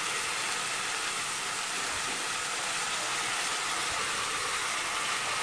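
Steady frying sizzle of fresh green beans being tipped into hot olive oil with onions.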